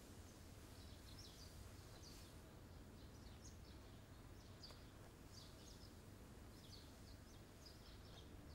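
Near silence with a low hum, over which small birds chirp faintly and intermittently in the distance.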